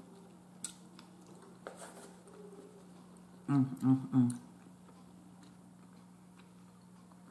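A woman chewing food with a few light clicks, then about three and a half seconds in she hums three quick closed-mouth "mm" sounds of enjoyment. A steady low electrical hum runs underneath.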